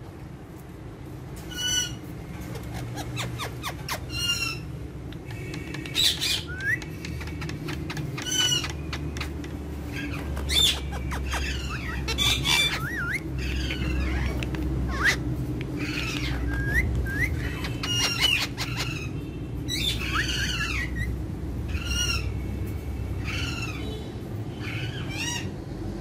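Indian ringneck (rose-ringed) parakeets calling and chattering: short harsh squawks about every two seconds at first, then a busier run of gliding chirps and chatter mixed with sharp clicks, over a steady low hum from about a third of the way in.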